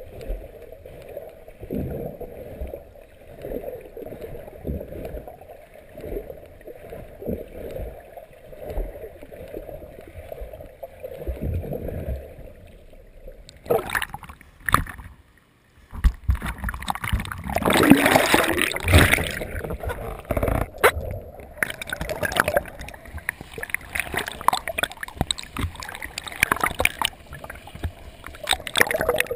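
Muffled underwater water noise heard through an action camera's waterproof housing, with irregular low swishes from a swimmer's kicking. About fourteen seconds in the camera comes up to the surface, and loud, crackling splashing of churned water takes over.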